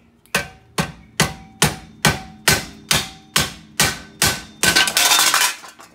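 Hammer blows on a seized steel wheel hub assembly, about ten sharp ringing strikes roughly two a second, then a longer burst of noise near the end as the stuck hub is driven out of the knuckle.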